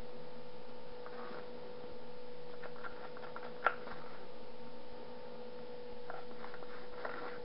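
Spoon scraping and stirring chocolate in a small plastic cup, a few faint scrapes and one sharp click about three and a half seconds in, over a steady electrical hum.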